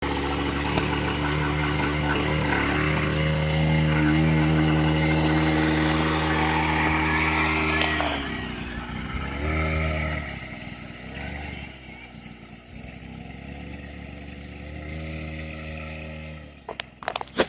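Small single-cylinder youth ATV engine running steadily, then quieter with its pitch dipping and rising several times as the throttle eases off and opens again. A few sharp clicks near the end.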